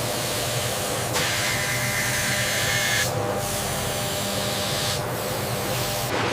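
Steady factory machine hum with two long hissing blasts, each about two seconds, like steam or air venting.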